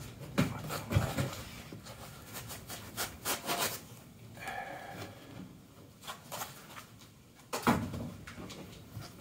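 A laptop in a felt sleeve being handled on a table: fabric rubbing and rustling, with a few knocks as it is lifted and set down, the loudest near the end.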